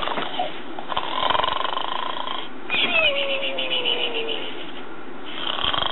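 Gund Arnold snoring pig plush toy playing its snore: a rasping, rattling inhale snore, then a long whistle on the exhale that slowly falls in pitch. The rasp starts again near the end.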